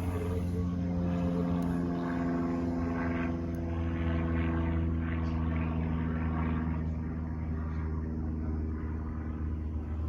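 Electric motor and propeller of a Timber X RC plane droning steadily in flight, over a constant low hum.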